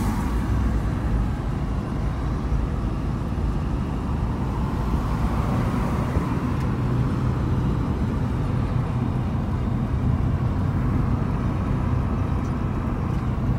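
A car driving along, heard from inside the cabin: steady engine and road noise with no break.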